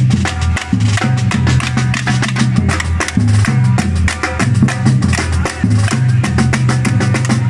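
Live band music with a prominent bass line whose notes change every half-second or so, under busy, rhythmic percussion with wood-block-like clicks.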